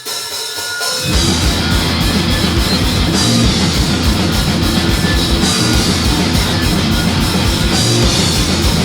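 Live punk rock band playing the instrumental intro of a song: drums and electric guitars come in full about a second in and keep a fast, driving beat.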